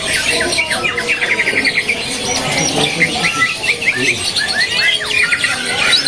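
Caged green leafbirds (cucak ijo) singing. It is a busy run of sharp chirps and short rising and falling whistles, with a fast trill of about ten notes a second about a second in.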